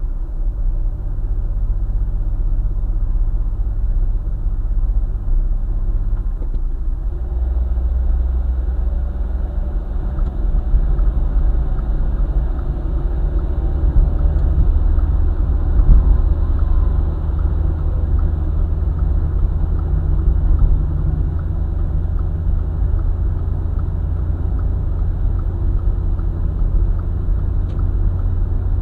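Car driving along a highway: a steady low rumble of engine and tyres on the road. The low hum shifts pitch about six seconds in.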